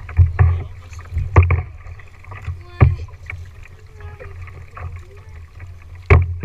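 Double-bladed kayak paddle strokes on a plastic tandem kayak: the blades dip and splash into the water with sharp, irregular knocks every second or so, over a steady low rumble.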